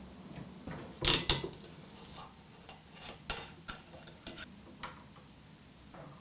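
Screw cap being twisted off a glass liqueur bottle: two sharp clicks about a second in, then a run of small irregular clicks and ticks as the cap turns and comes free.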